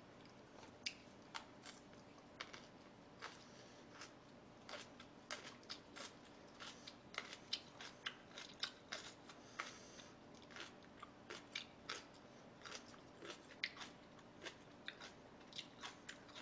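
Close-miked chewing and biting of food: irregular crisp clicks and crunches, a few each second.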